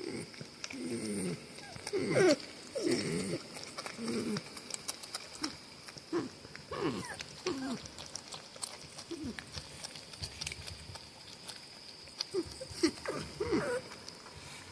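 Two porcupines squabbling over food: a string of short, pitched calls that slide down in pitch, thickest in the first half and again near the end. Sharp clicks are scattered among them.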